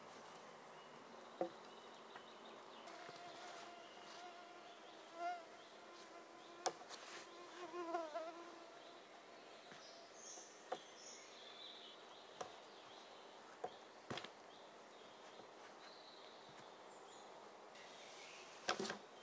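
A fly buzzing near the microphone in a quiet forest, its pitch wavering as it moves, loudest about eight seconds in. A few scattered sharp clicks and a couple of faint high chirps are heard around it.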